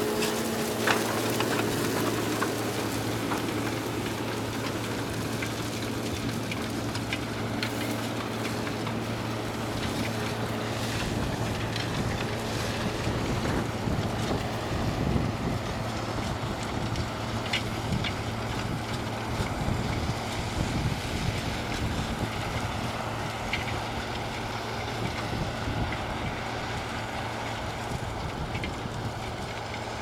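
Case IH tractor engines working steadily under load as they pull reversible ploughs through heavy soil, a continuous drone, with wind buffeting the microphone.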